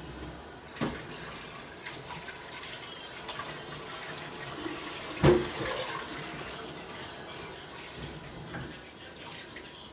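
Water running from a kitchen tap into the sink, with a knock of kitchenware about a second in and a louder clank about five seconds in; the running eases off near the end.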